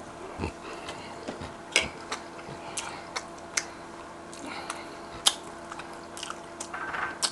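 A man chewing a mouthful of food close to the microphone, with scattered sharp mouth clicks and smacks. A faint steady hum runs underneath.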